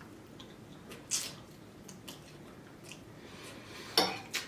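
Mouth sounds of someone eating seafood linguine: quiet chewing with a few short wet smacks, and a sharp click near the end.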